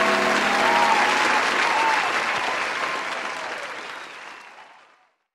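Audience applauding, the applause dying away over the last few seconds and cutting to silence about five seconds in.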